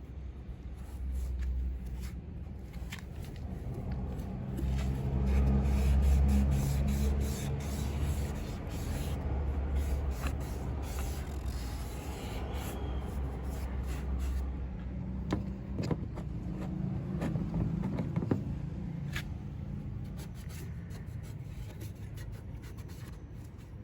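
Scrapes and rubbing of a cloth or applicator being worked over plastic trim, with scattered clicks. Under it runs a low engine hum that swells and fades twice.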